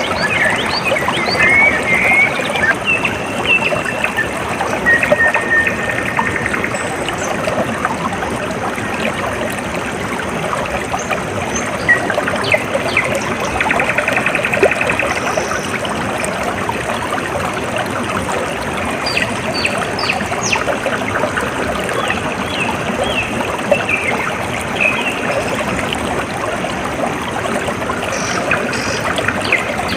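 Water trickling and splashing steadily, as in a small stream, with birds chirping and giving short trills over it at intervals.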